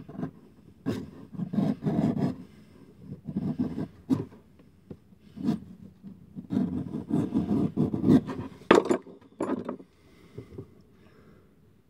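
Sharp knife cutting and paring along the edge of a leather insole on a shoe last, in short rough scraping strokes that come in uneven bursts, with two sharp clicks near the end.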